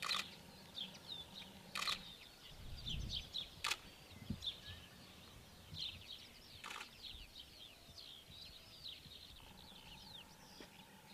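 Birds chirping and singing, many short high calls throughout. A few short, sharp noises break in, the first right at the start and the others about two, three and a half, and seven seconds in.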